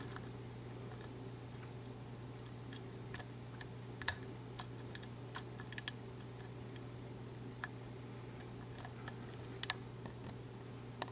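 Faint, irregular metallic clicks and ticks of a lock pick and tension wrench working the pins in the keyway of an ASSA V-10 high-security cylinder lock, with one sharper click about four seconds in.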